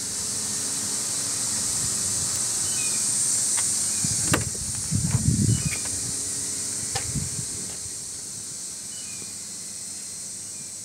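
A vehicle's driver door is opened: a sharp latch click about four seconds in, then a second of low knocking and rubbing as the door swings and the camera is handled, and another click near seven seconds, all over a steady high hiss.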